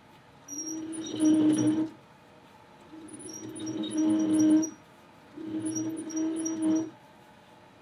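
Small metal lathe cutting across the end of a hard-to-machine stainless steel bar. Three separate bursts of cutting, each about a second and a half long, carry a steady low tone and fine high ticking, with quieter gaps of about a second between them.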